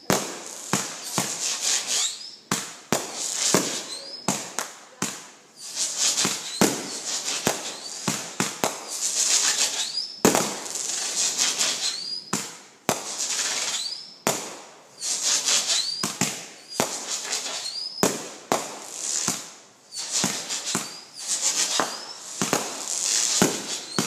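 Aerial fireworks finale: a fast run of sharp bangs from bursting shells, one every second or so, each trailing off in crackling, with short rising whistles in between.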